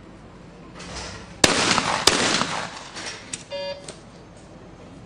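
Two shotgun shots about two-thirds of a second apart, as at a skeet doubles pair, each ringing out over the range. A short electronic beep follows about a second later.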